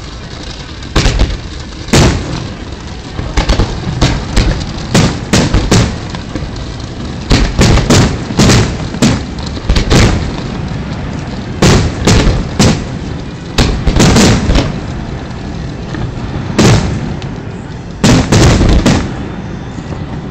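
Fireworks display going off: loud sharp bangs and reports of launched comets and bursting shells, coming singly and in quick volleys of several shots every second or so. The bangs stop shortly before the end.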